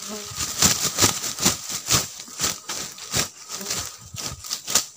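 Hurried footsteps crunching through dry leaf litter, with brush rustling and crackling, in quick irregular strokes about two to three a second.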